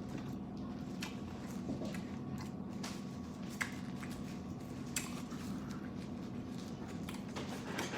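Close-up eating sounds of lo mein noodles: wet chewing and smacking with scattered small clicks. Behind them runs the steady hum of an electric fan.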